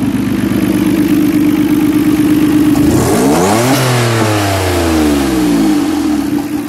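1989 Nissan Skyline GT-R's RB26DETT twin-turbo straight-six idling, then revved once about three seconds in: the pitch climbs quickly and falls back to idle over about two seconds.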